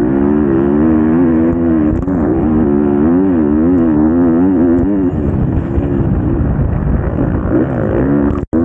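Motocross bike engine heard from on board the bike, revving up and down in quick surges over the first five seconds, then running rougher and less evenly. The sound cuts out briefly near the end.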